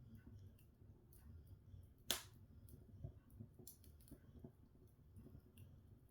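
Open wood log fire crackling quietly: scattered small ticks and crackles, with one sharp, louder pop about two seconds in.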